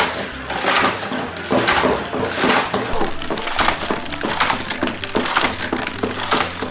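A die-cast toy car rattling around a plastic race track after being launched by the track's spin booster, a clattering that swells about once a second.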